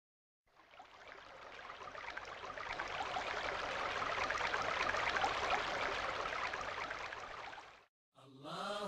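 Rushing, pattering water-like noise that fades in over a few seconds, swells and fades out, then stops abruptly about a second before the end. A chanting voice begins just after it.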